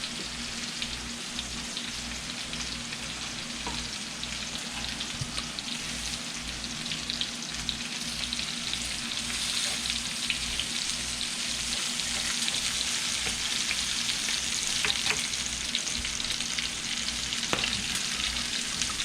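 Bacon-wrapped hot dogs frying in a hot pan: a steady sizzle dotted with small pops of spitting bacon fat.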